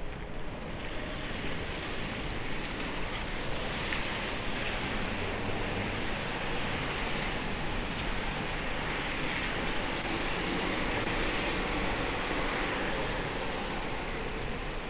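City traffic driving past on a rain-wet avenue, tyres hissing on the wet road in swells as cars go by.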